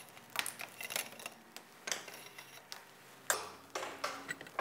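Light, irregular clicks and ticks of cables being handled and fed through a metal trolling-motor mounting bracket, with a louder knock and rustle a little over three seconds in.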